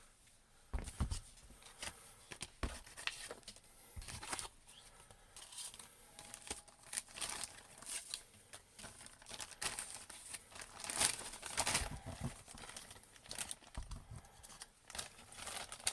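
Crinkling and rustling of something being handled, with scattered taps and clicks; the loudest come about eleven to twelve seconds in.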